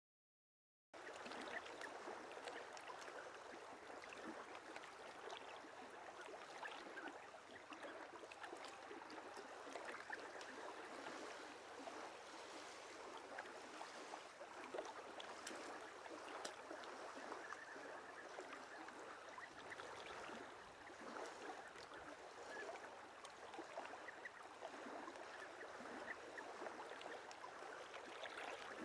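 River water flowing and lapping, a steady wash with small splashes and trickles, starting about a second in after silence.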